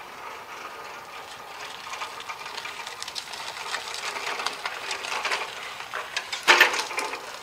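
Legend Force walk-behind string trimmer pushed across gravel with its engine off: a busy rattle and clatter of wheels and frame that grows louder as it comes closer, with one loud clunk near the end.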